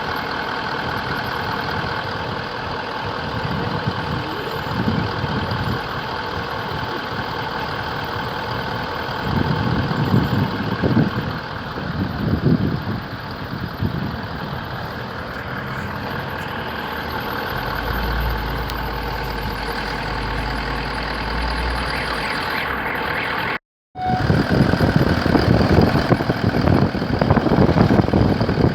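New car's engine idling with a steady high whistle from under the hood. The sound drops out for a moment about three-quarters of the way through and comes back louder.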